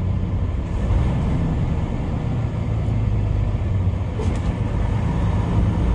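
Semi-truck's diesel engine running steadily under way, with tyre and road noise, heard from inside the cab.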